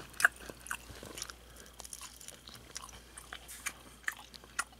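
A person chewing a bite of crisp-coated, freshly fried chicken nugget: scattered soft crunches and mouth clicks, the loudest about a quarter-second in.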